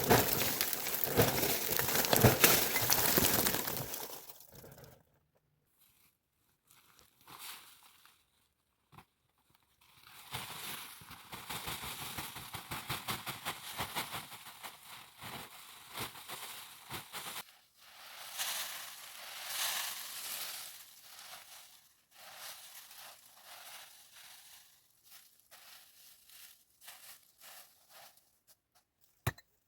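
Rustling and crunching in several stretches with pauses between, like material being handled or trodden, with scattered sharp clicks toward the end.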